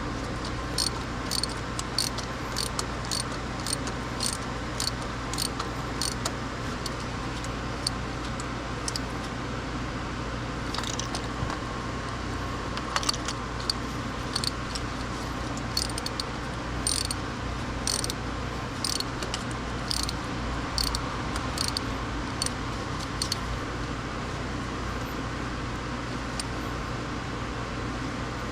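Hand tools clicking during engine work: a long run of short sharp metal clicks, about two a second and some in quick pairs, stopping near the end, over a steady low hum.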